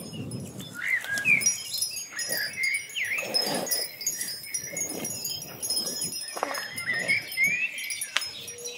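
Ambient soundtrack of wind-chime tinkling, with soft swelling low tones underneath and a few gliding, whistle-like tones.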